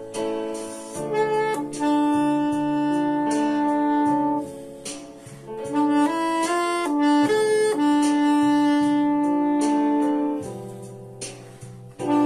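Straight soprano saxophone playing a slow melody, with long held notes and shorter moving phrases between them, over a backing track of sustained low chords.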